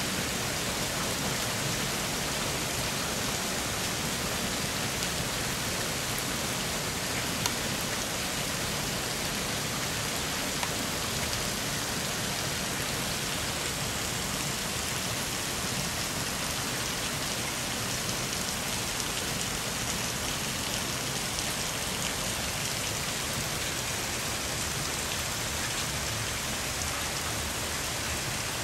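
Floodwater rushing down a street as white water, a steady, unbroken wash of water noise.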